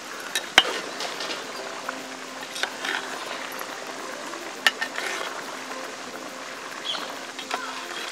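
A perforated metal skimmer clinks and scrapes against an aluminium pot as it stirs ash gourd pieces in bubbling sugar syrup. There are a few sharp metal clinks, the loudest about half a second in, over a steady low bubbling hiss.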